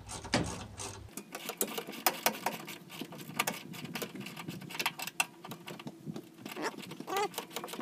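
Small hand ratchet clicking in quick, uneven runs as a fastener is tightened.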